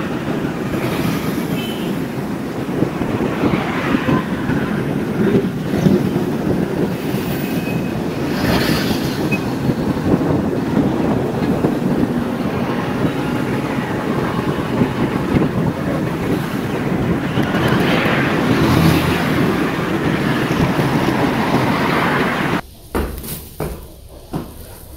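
Steady ride noise on a busy road: the running engine of a small vehicle, wind on the microphone and passing traffic. Near the end it cuts off suddenly, and a woven plastic sack rustles as it is carried.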